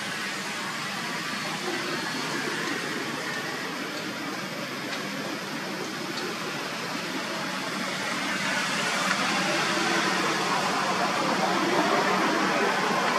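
Steady hissing background noise with no distinct events, growing louder about two thirds of the way through.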